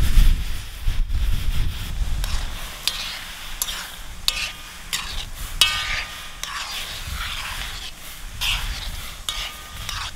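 A metal utensil scrapes and clinks against a metal skillet while stirring tortellini in simmering water over a campfire. The strokes are irregular, several with a short metallic ring, over the steady hiss and bubbling of the water. A low rumble sounds in the first couple of seconds.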